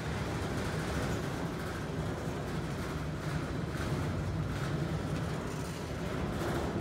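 Norfolk Southern freight train's empty flatcars rolling past on the rails: a steady rumble and rattle of steel wheels and car bodies.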